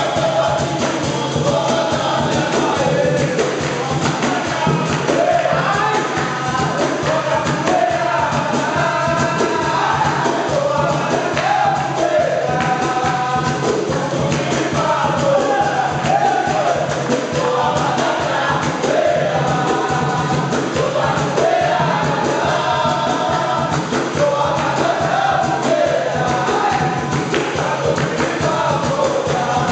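Live capoeira roda music: men singing in a group over berimbau bows, an atabaque drum and hand clapping.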